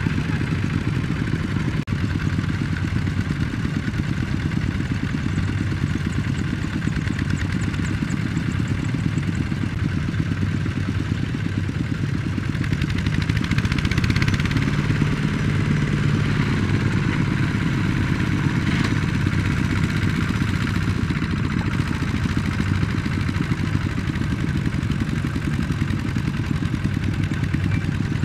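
Single-cylinder diesel engine of a two-wheel power tiller running steadily with a fast, even knocking beat while it hauls a loaded trailer through soft paddy ground. It gets somewhat louder about halfway through.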